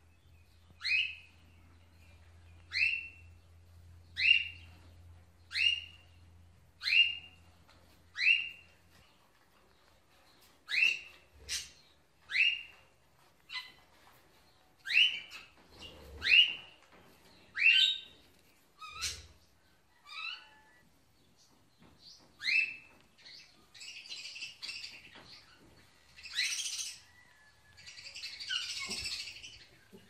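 Pet parrot calling over and over: short, sharp calls that drop in pitch, about one every second and a half. Near the end these give way to harsher, rasping squawks.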